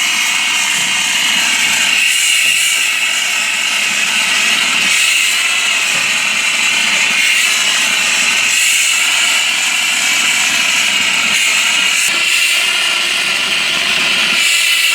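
Steady loud hiss of compressed air blowing vermiculite plaster mix out of a Tornado AS-5 shotcrete machine's spray nozzle.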